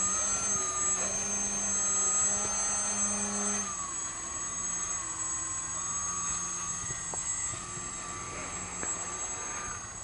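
Motor and propeller of a small foam delta-wing RC plane in flight, a steady whine that drops to a lower pitch about four seconds in and holds there.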